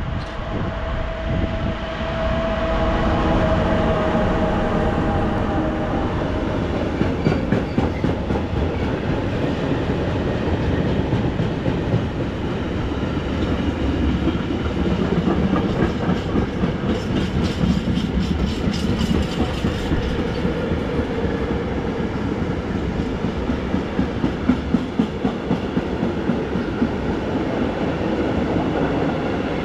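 A train running through the station, its wheels clattering rhythmically over the rail joints. A whine fades out about six seconds in.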